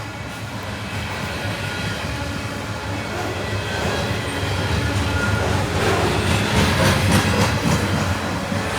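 Freight train rolling past, its wheels clacking and rumbling over the rails, growing steadily louder, with a cluster of sharp clanks near the end.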